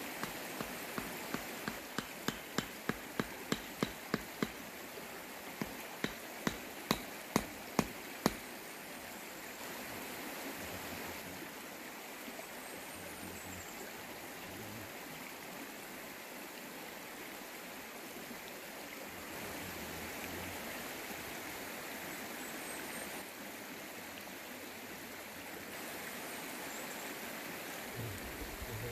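Sharp knocks of kindling being chopped at a woodpile, about two a second, stopping about eight seconds in. Under them and after them, a creek rushes steadily.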